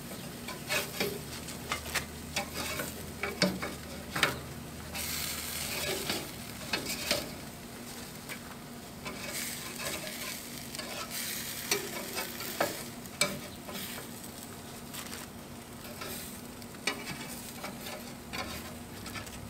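Marinated portobello mushrooms sizzling on hot grill grates, while a metal spatula scrapes under them and clicks against the grates as they are lifted off, at irregular intervals.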